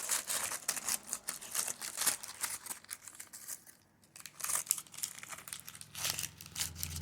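Plastic wrapping crinkling and tearing in irregular bursts as L.O.L. Surprise blind balls are unwrapped by hand, with a short pause about four seconds in. A low steady hum comes in near the end.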